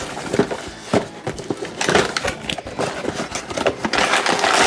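Cardboard box and plastic packaging being opened and handled: irregular rustling, crinkling and knocks.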